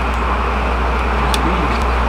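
Steady low outdoor rumble with an even hiss above it, like background road traffic, and a couple of light ticks about a second and a half in.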